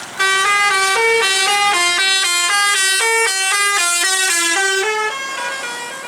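Indonesian 'telolet' bus horn, a multi-tone air horn, playing a quick melody of short notes at about four a second, then fading out near the end.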